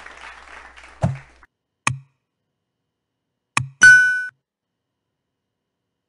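Applause dying away, then the sound effects of a subscribe-button animation: three mouse clicks, the last followed straight away by a short bell ding.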